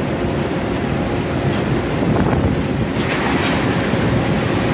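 Fishing boat's engine and deck machinery running with a steady hum under the rush of sea water churning alongside the hull, and wind on the microphone. A brief brighter splash of noise about three seconds in.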